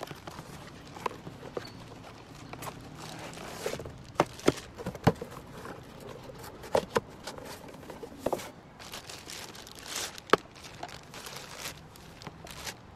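Cardboard box and plastic packaging handled while unpacking: flaps and an inner box rustling and scraping, a plastic bag crinkling, with scattered sharp knocks and taps as pieces are set down and handled.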